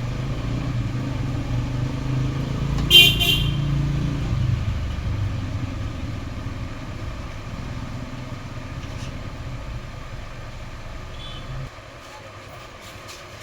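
Street traffic: a motor vehicle engine running close by, easing off and dropping away sharply near the end, with one short horn toot about three seconds in.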